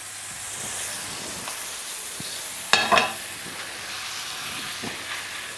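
Duck breasts sizzling steadily in rendered fat in a stainless steel frying pan on a gas hob, with one brief louder sound about three seconds in.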